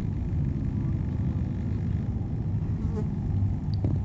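Low, steady engine rumble of a passing ship.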